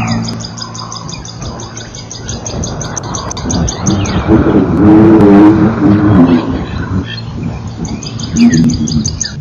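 A small bird chirping in a fast, even series of high notes. In the middle, a louder, lower wavering sound rises and dies away.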